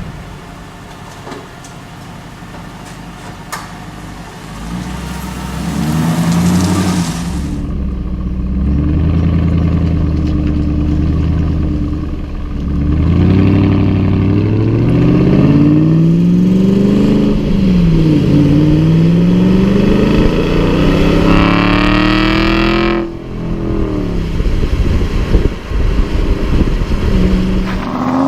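Aston Martin V8 Vantage's 4.3-litre V8 running low at first. About five seconds in it begins accelerating, its pitch climbing and dropping back several times through gear changes. It climbs steeply to its highest pitch near the end, then the throttle closes suddenly and the exhaust crackles unevenly on the overrun.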